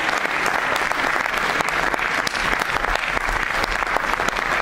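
Audience applauding: dense, even hand-clapping.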